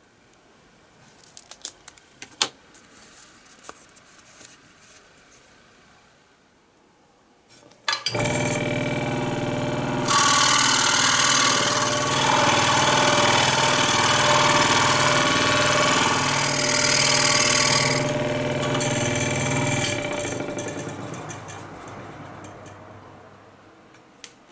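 Small clicks of hand work, then an electric power tool's motor switches on about eight seconds in. Its motor runs with a loud rushing hiss of cutting into cypress wood for about eight seconds. It is then switched off and spins down over the last few seconds.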